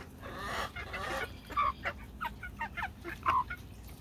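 A flock of chickens clucking as they feed: a run of short clucks, with two louder calls about one and a half and three and a quarter seconds in.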